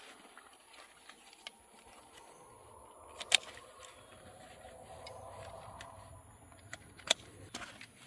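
Nylon chest rig being put on and fastened: two sharp plastic clicks, about 3.4 and 7 seconds in, as its buckles snap shut, with small rustles and ticks of webbing and gear between. A faint low hum swells and fades in the middle.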